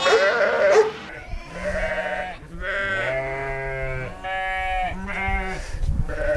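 Sheep bleating: several long, wavering bleats one after another, some overlapping at different pitches.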